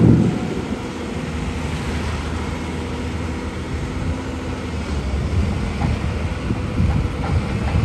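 Caterpillar 320 hydraulic excavator's diesel engine running steadily, with a thump right at the start and a few faint knocks later.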